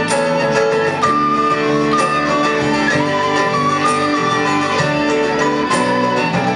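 A band plays an instrumental passage of a song: a melody line over guitar accompaniment, with a steady beat.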